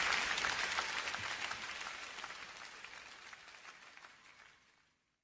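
Live concert audience applauding, many hands clapping, fading out steadily to silence over about five seconds.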